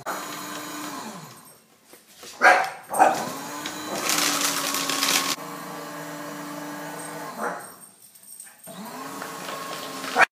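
Electric paper shredder motor starting and stopping several times, running louder and rougher for about a second and a half in the middle. A chihuahua barks at it, twice in quick succession while the motor is off and once more as it stops later.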